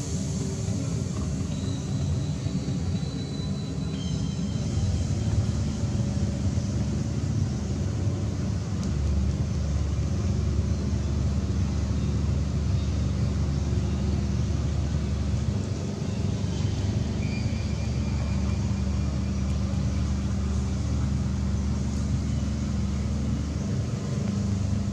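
A steady low rumble, heavier in the second half, with a few brief faint high chirps.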